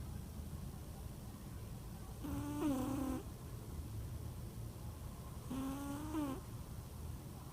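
Domestic cat snoring in her sleep: a steady low rasping breath, broken twice by a short whistling tone, about three seconds apart.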